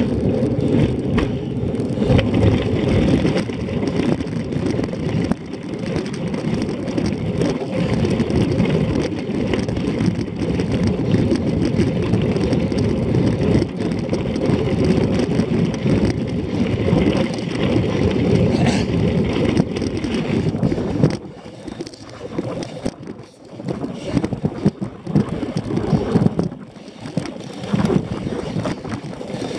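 Cyclocross bike's tyres rumbling over a gravel track, with wind on the microphone. About 21 seconds in, the loud, steady rumble drops to a softer, uneven one with separate jolts as the bike rolls onto grass and dirt.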